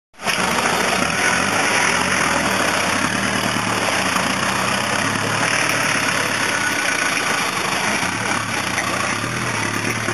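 Engine of a roll-caged off-road 4x4 running steadily, without clear revving, as it drives through deep mud.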